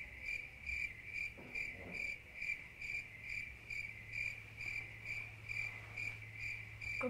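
Cricket chirping steadily in short, evenly spaced chirps, a little under three a second, over a low steady hum.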